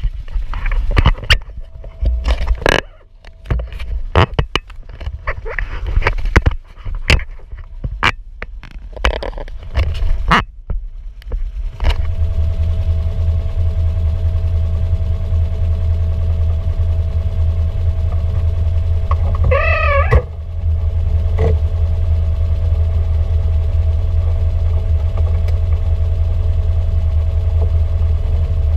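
Polaris RZR 900 Trail side-by-side riding a rough trail: for roughly the first twelve seconds, loud irregular knocks and clunks from the rear suspension, which the owners take for a loose sway bar. Then its parallel-twin engine runs steadily, with a brief wavering high-pitched sound about twenty seconds in.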